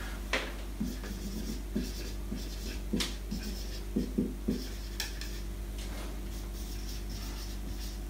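Dry-erase marker rubbing and scratching across a whiteboard as words are written, in short irregular strokes. The strokes are busiest in the first five seconds and then thin out.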